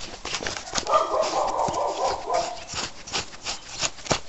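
A dog giving one drawn-out cry of about two seconds, starting about a second in, over a running clatter of sharp clicks and rattles from the bicycle and its handlebar-mounted camera.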